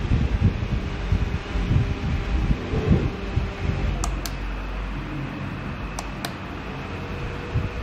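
Small multimedia desk fan running with a steady whirring, with some uneven low rumbling in the first few seconds. Two pairs of sharp clicks come about four and six seconds in.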